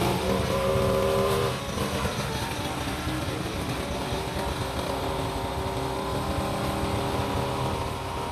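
Backpack brush cutter's small petrol engine running steadily, a little louder in the first second or two, then even as it moves off.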